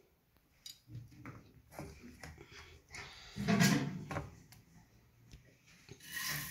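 Soft knocks and rustles of kitchen handling as whole green chillies and coriander are laid on a pot of curry, with one louder muffled knock about three and a half seconds in.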